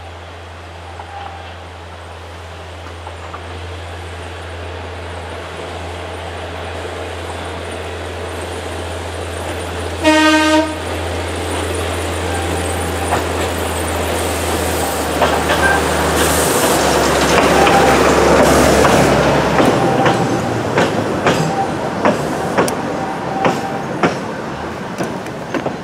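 Narrow-gauge diesel locomotive approaching with its engine running steadily and growing louder, giving one short horn toot about ten seconds in. As it passes, its coaches follow with a regular clickety-clack of wheels over rail joints.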